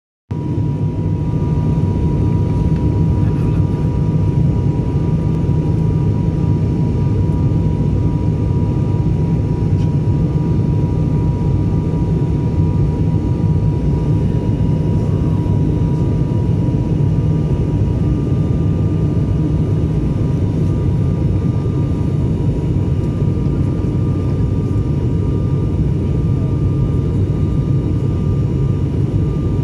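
Cabin noise of an ATR 72 turboprop airliner, heard from a window seat beside the engine while it descends on approach to land: a steady deep drone from the propeller and engine, with a faint steady whine above it.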